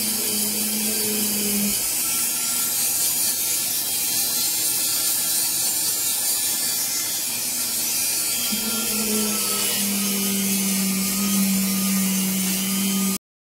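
Compact hand-held router spinning a flat grinding-wheel bit at high speed, carving a shallow layer out of the column's surface. The whirring is steady and cuts off suddenly near the end.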